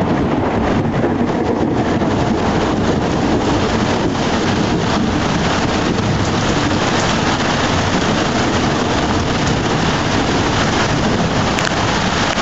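Heavy rain pouring steadily in a thunderstorm, an even, unbroken hiss with strong low-end noise underneath.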